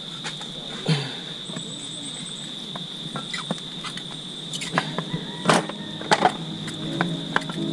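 Sharp metallic clinks and knocks of parts being handled on a stripped motorcycle engine crankcase, the loudest a little past halfway, over a steady high-pitched insect drone.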